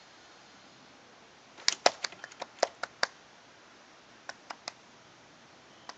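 One person clapping hands: a quick run of about nine claps, then three more about a second later.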